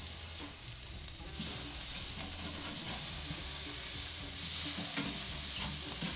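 Ground beef burger patties sizzling steadily on the hot grate of a ceramic kamado charcoal grill as they are flipped with a slotted metal spatula, with a few light clicks of the spatula against the grate.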